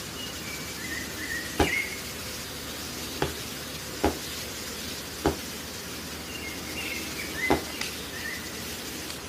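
Five sharp knocks, irregularly spaced, over a steady hiss, with two short runs of faint high chirps.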